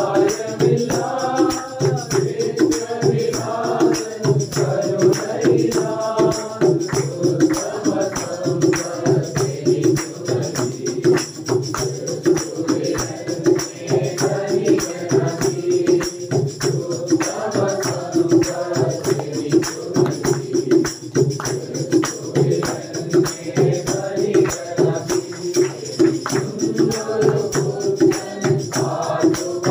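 A devotional song: several voices singing together, with a tambourine keeping a steady beat.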